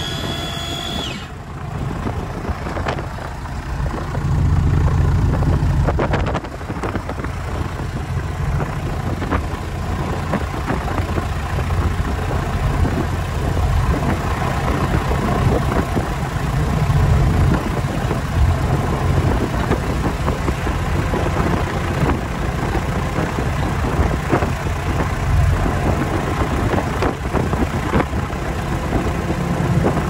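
Cessna O-1G Bird Dog's six-cylinder Continental O-470 engine and propeller running at low power on the ground, heard from inside the cockpit. It grows louder about four seconds in and drops back about two seconds later, then swells slightly a few more times.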